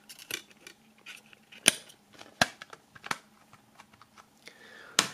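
Plastic CD jewel case being handled, with several sharp clicks as the disc is pressed onto the centre hub and the case is closed.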